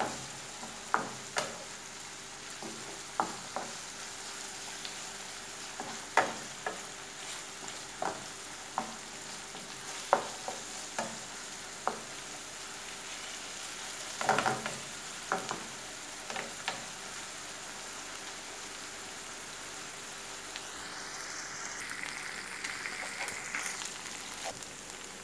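Diced meat and onion sizzling steadily in oil in a non-stick frying pan, being sautéed until cooked through. A wooden spatula stirs and knocks against the pan every second or two, with a quick run of knocks about halfway through; the sizzle swells a little near the end.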